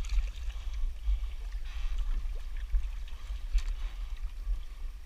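Wind buffeting the microphone while a Hobie 14 catamaran sails, with water rushing and splashing against the hulls in uneven surges.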